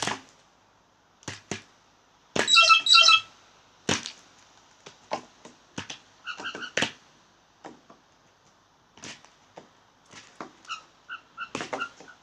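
Blue jays making short bursts of quick, pitched call notes, three times, between sharp knocks and taps of beaks on seeds and the feeder.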